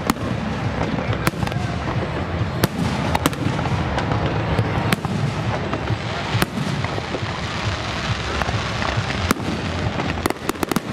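Fireworks going off: a dense steady noise with sharp cracks scattered through it, several in quick succession near the end.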